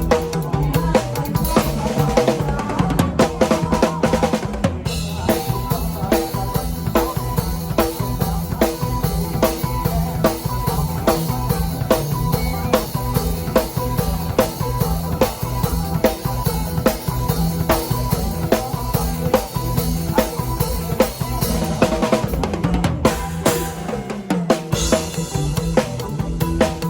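Instrumental Isan toei music: a drum kit keeps a steady, driving beat under a repeating melody.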